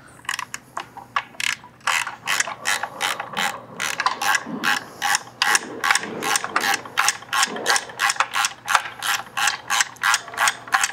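Hand ratchet wrench clicking in a steady run, about four clicks a second, sparse at first and then regular from about two seconds in.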